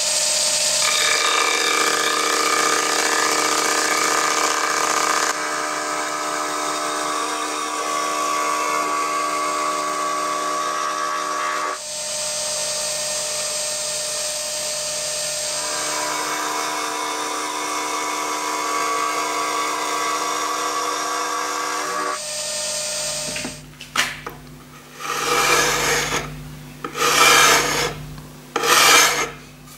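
Vertical milling machine face-milling the edge of a cast aluminium plate: a steady cutting whine with several pitches that shifts twice and stops about 22 seconds in. Then a few short scraping strokes by hand.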